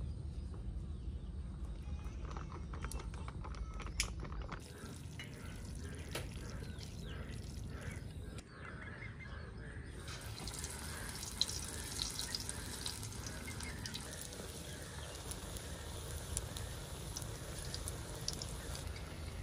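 Cooking oil poured into a karahi over a wood fire, then pakora batter dropped into the hot oil: from about halfway through, a steady crackling sizzle of pakoras deep-frying.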